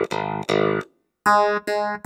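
Electric-piano preset on a Roland FA-08 stage keyboard, played as short detached chords: four of them, each cut off cleanly, with a brief silence about midway.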